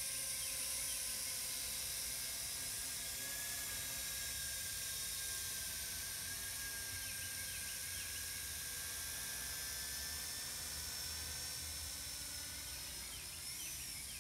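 RISE Archon quadcopter drone flying overhead, its motors and propellers giving a steady whine that wavers slightly in pitch.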